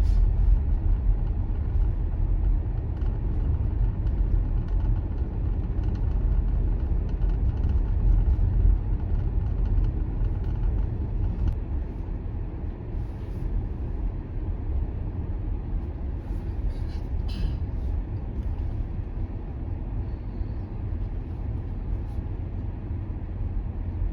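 Steady low road and tyre rumble of a car driving, heard from inside the cabin; the rumble eases a little about ten seconds in.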